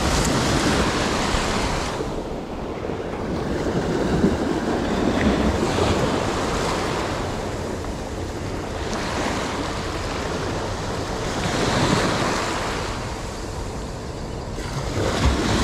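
Sea waves breaking and washing in, swelling and fading every few seconds, with wind rumbling on the microphone.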